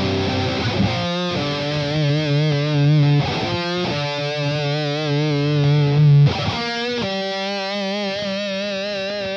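Distorted electric guitar played through a fuzz pedal with a clean booster in the chain, holding long sustained notes with wide vibrato. The note changes about a second in, again around four seconds in, and again near seven seconds.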